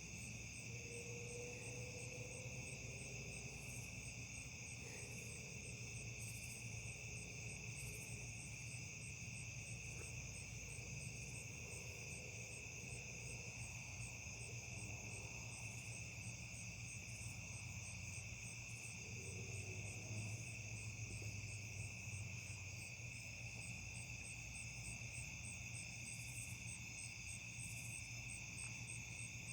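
Steady night chorus of crickets and other insects, several high trills layered together, with a faint low hum underneath.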